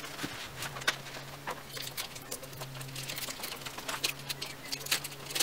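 Irregular light clicks and taps of hand work under a car during an oil change, over a faint steady low hum.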